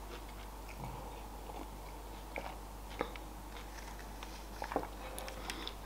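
Quiet drinking from a mug: a few faint sips, swallows and small mouth clicks, spaced out and soft.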